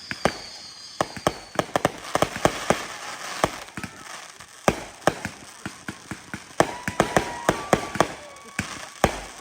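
Fireworks going off: rapid, irregular sharp pops and crackles, several a second, with a thin high whistle through the first second or so.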